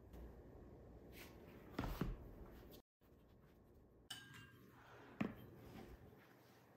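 Faint knocks and clinks of small decor objects being handled: a couple of knocks about two seconds in, then a single sharp tap about five seconds in.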